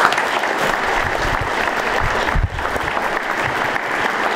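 Audience applauding, breaking out suddenly and keeping up steadily.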